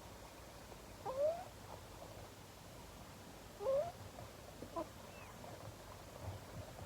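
Three short rising animal calls over faint background hiss: one about a second in, a louder one a little before four seconds, and a brief one near five seconds.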